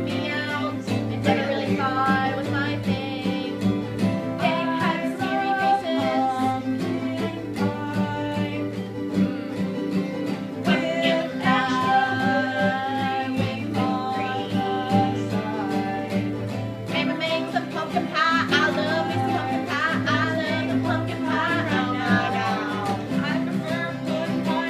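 Country-style song: acoustic guitar played with a singing voice over it.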